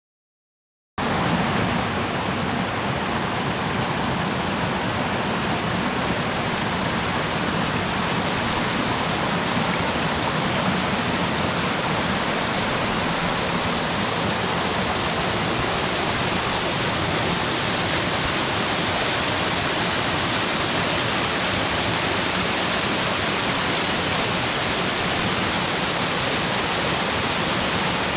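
Waterfall's water falling and splashing in a steady, even rush that starts abruptly about a second in.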